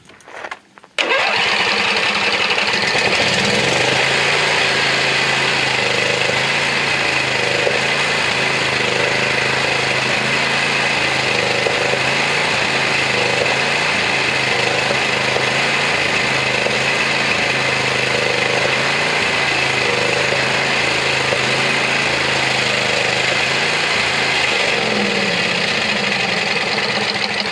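A ride-on mower's 24 hp engine starts about a second in and runs steadily, driving the stator while its AC output is measured.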